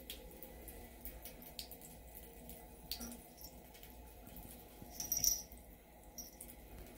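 Water running faintly from a bathroom sink tap, with small scattered drips and splashes. About five seconds in there is a short high squeak.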